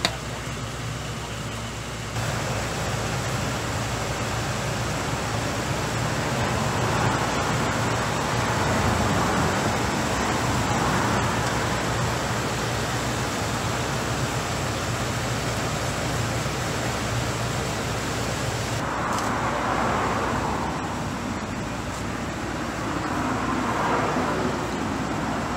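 Steady road traffic noise with a low engine hum, louder from about two seconds in, with a few swells like vehicles passing.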